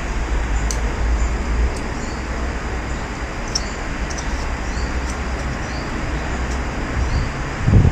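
Steady low background rumble and hiss, with a few faint, short high-pitched ticks scattered through it.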